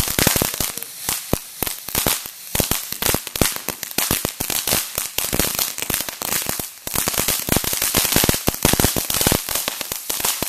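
Consumer firework going off in a rapid run of sharp crackling pops, many a second, with a short lull about seven seconds in.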